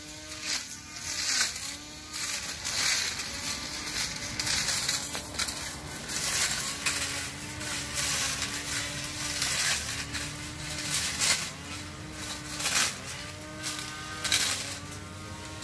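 Cordless battery-powered grass trimmer whirring as it cuts into a hedge. Its motor pitch sags and recovers roughly once a second as it bites into the foliage, with a crackle of shredded leaves.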